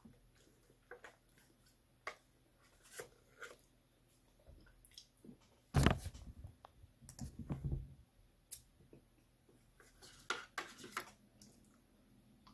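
Spoon clicking and scraping in a small pot while eating, as scattered light ticks. A loud thump about six seconds in, followed by a brief low rumble of handling.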